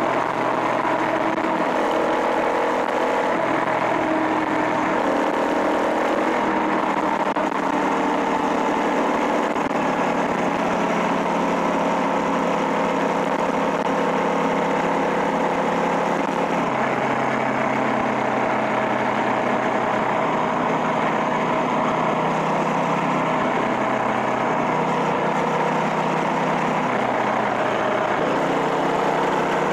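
Small single-cylinder engine of a motorized bicycle running steadily while riding, its pitch stepping up and down several times as the throttle changes.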